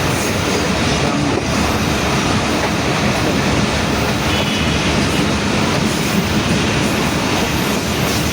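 Pakistan Railways passenger train in motion: the steady running noise of the coach and its wheels on the track.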